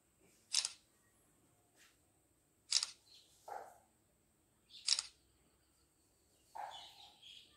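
Camera shutter clicking three times, about two seconds apart, as photos are taken of a posed group.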